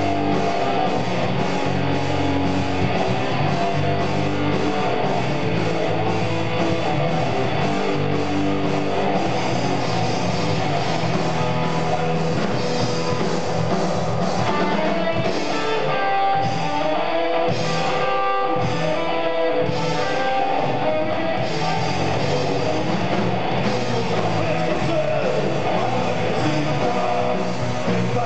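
Live rock band playing, with electric guitars, bass and drums, and some singing. For a few seconds past the middle the low end drops away and guitar lines stand out, then the full band comes back in.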